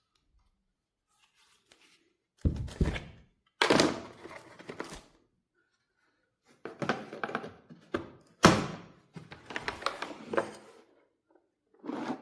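A string of hard knocks and thunks, each with a short ringing tail in a small room, as hard objects are set down and handled; the loudest come about two and a half, three and a half and eight and a half seconds in. No drill motor is running.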